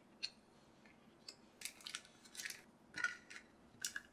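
Plastic-wrapped merchandise and photocards being handled and set down on a cutting mat: several short plastic crinkles and light taps at uneven intervals, the loudest about three seconds in.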